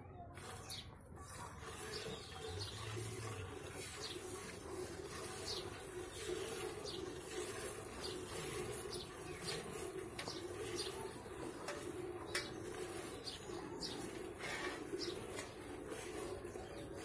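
A cow being milked by hand: short squirts of milk streaming into a steel bucket, one or two a second.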